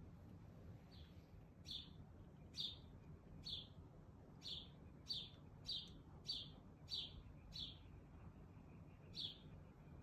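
A small bird chirping a short, high, sharp note over and over, about eleven times at a bit more than one a second, with a brief pause near the end.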